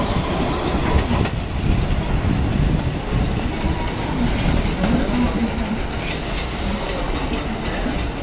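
Kintetsu 12200 series four-car electric express train pulling away, its wheels rolling and clacking over the rail joints and points in a steady rumble.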